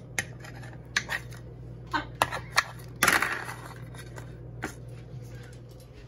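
Kitchen scissors snipping a tortilla into pieces over a plastic plate: a string of sharp snips and clicks, with a louder clatter about three seconds in. A steady low hum runs underneath.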